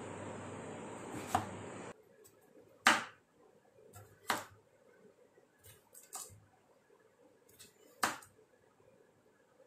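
A steady hiss that cuts off abruptly about two seconds in, then irregular sharp knocks and clicks of kitchen utensils being handled, a few loud ones among fainter taps.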